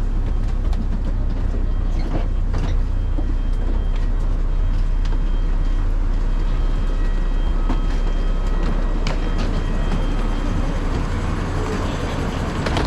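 Inside a moving shuttle bus: a steady low rumble from the engine and road, with scattered rattles and clicks.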